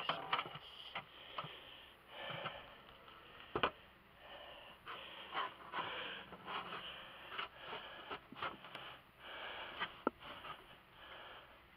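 Irregular scraping, clicking and rustling as a hive strap and its hooks are worked around wooden hive boxes.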